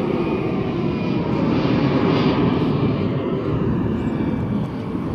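Jet airliner's engines at takeoff thrust as it climbs out: a loud, steady noise that swells a little around the middle.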